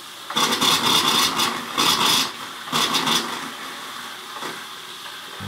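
Bathroom sink faucet running after the water is turned back on, rushing and spitting in three bursts over the first three seconds as air is cleared out of the lines, then settling to a quieter steady flow into the basin.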